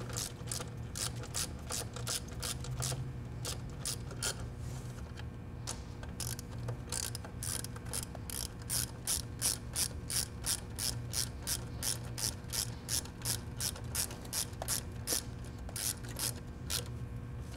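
Hand ratchet wrench clicking rapidly and evenly, about three to four clicks a second, as it tightens the two small hold-down bolts of an ignition coil. There is a brief pause about five seconds in.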